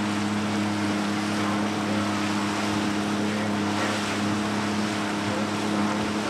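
Motorboat engine running at a steady speed under way, with wind and water noise rushing past.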